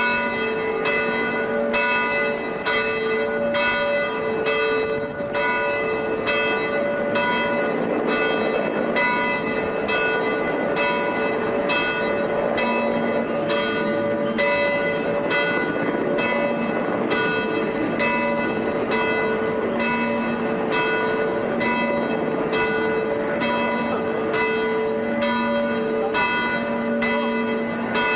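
Church bells pealing, several bells of different pitch sounding together in an even run of strokes about once a second.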